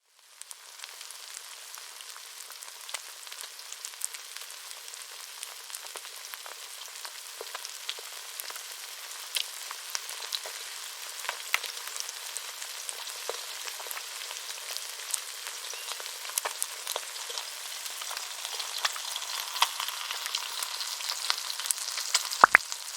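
Steak sizzling in a hot pan: a steady hiss dotted with crackles and pops, slowly growing louder, with a couple of sharper clicks near the end.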